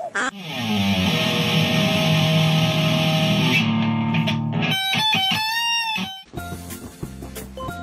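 ESP LTD electric guitar played loud: a long sustained chord for about three seconds, then quieter single notes that bend in pitch.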